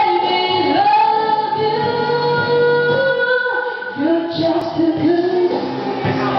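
A song playing in a karaoke room: a sung vocal over backing music, with long held notes in the first half and then shorter sung phrases.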